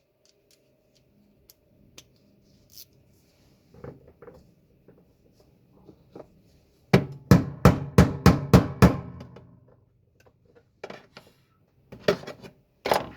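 Hammer striking a metal socket in a quick run of about seven blows, about four a second, with a couple more strikes near the end; light tool clicks and taps before them. The socket is being driven onto a bolt head.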